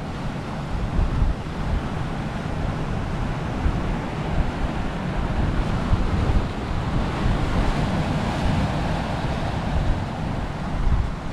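Sea swell surging and breaking white over rocks, with wind buffeting the microphone in a steady low rumble. A wave washes in stronger a little past the middle.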